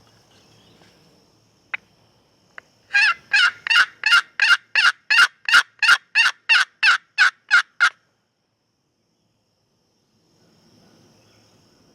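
Hand-operated turkey call run in a long, loud series of about fifteen even hen yelps, roughly three a second, after two sharp clicks.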